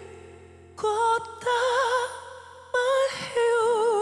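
A woman singing a slow ballad solo into a microphone, with wide vibrato on long held notes over a soft sustained backing. She comes in after a short pause about a second in, and holds the last note through the end.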